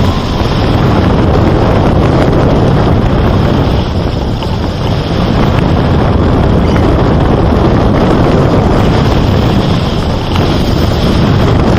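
Wind buffeting the microphone: a loud, steady rush with a deep rumble, dipping briefly a few times.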